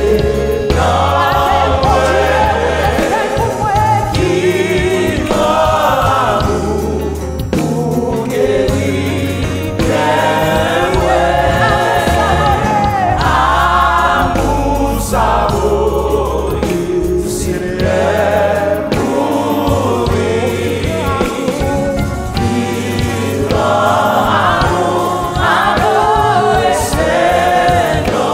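Gospel worship song sung in Haitian Creole: a woman's lead vocal on microphone, with backing singers and a steady bass accompaniment.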